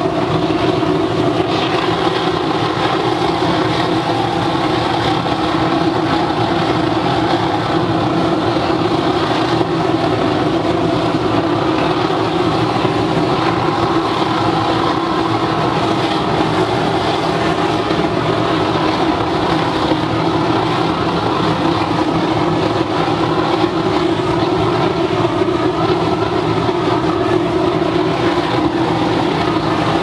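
Waste oil burner running flat out, its flame blasting into a barrel furnace: a loud, steady rushing noise with an even hum underneath.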